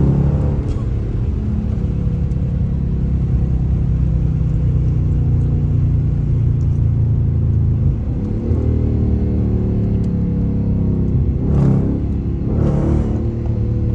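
Dodge car's engine running under way, its pitch climbing about eight seconds in as the revs rise. Two brief louder bursts come near the end.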